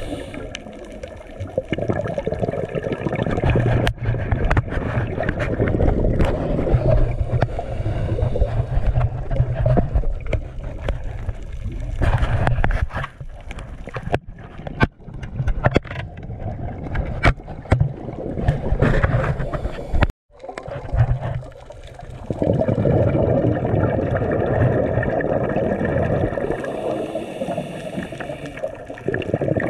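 Muffled underwater noise heard by a GoPro 7 in its waterproof housing: a steady low rushing rumble with scattered sharp clicks and knocks. The sound cuts out for a moment about twenty seconds in.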